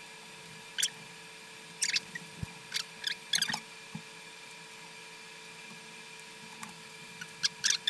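Scattered short rustles and clicks of a fabric baby carrier's straps and buckles being handled as it is put on, in two clusters: a few in the first half and more near the end. A faint steady hum sits underneath.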